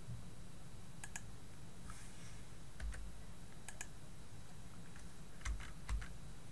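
Computer keyboard keys and mouse buttons clicking: a handful of scattered presses, several in quick pairs, over a low steady hum.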